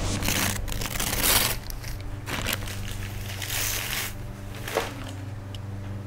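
Paper and packaging rustling and crinkling as a gift is unwrapped and a paper sketch pad is drawn out, in several bursts, the longest and loudest at the start. A low steady hum sits underneath.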